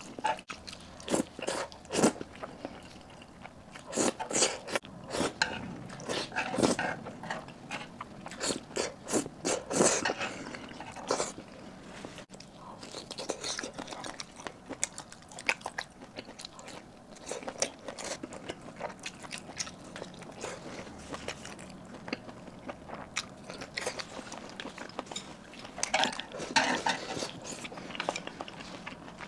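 Close-miked eating sounds: noodles in crab roe sauce slurped and chewed with wet mouth smacks. A run of loud smacks over the first ten seconds or so gives way to quieter chewing, with another cluster of smacks near the end.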